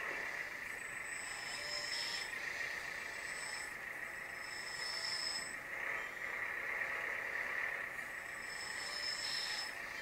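LESU 1/14 metal RC articulated dumper running as it drives and turns. A steady whine is joined by a higher thin tone that comes in for about a second at a time, a few seconds apart.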